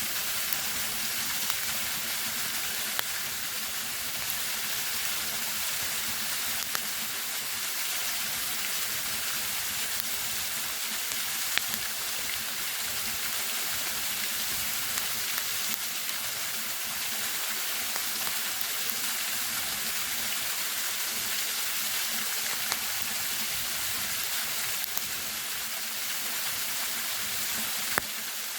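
Steady rushing of a waterfall, with a few sharp pops and crackles from a campfire, the clearest about three seconds in, near twelve seconds and near the end.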